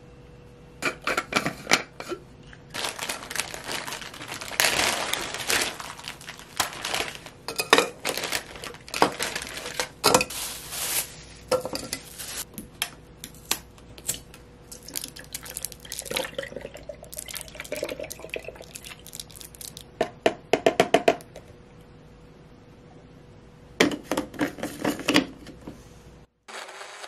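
Kitchenware being handled: irregular clinks, knocks and short scrapes of dishes and utensils, with a quick run of taps about twenty seconds in.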